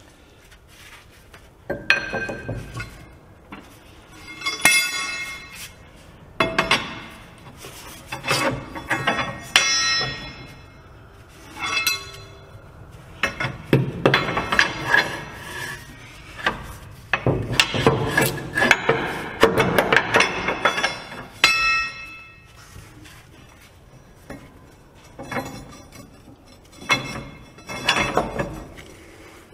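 Irregular metal clanks and hammer strikes on steel, with a ringing tail after many of them, as a heavy truck leaf spring pack is worked into place on the axle. The strikes come in clusters, busiest in the middle, with quieter pauses between them.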